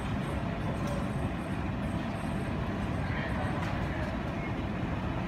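Steady low rumble of airport jet aircraft noise heard from inside the terminal, muffled by the window glass.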